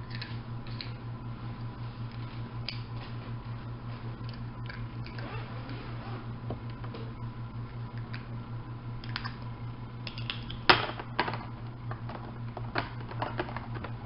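Small clicks and crinkles of plastic toy packaging being handled and opened by hand, over a steady low hum. A sharper click comes about ten and a half seconds in, followed by a run of smaller clicks near the end.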